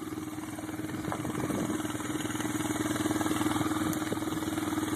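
An engine idling steadily, an even hum with a fast regular pulse.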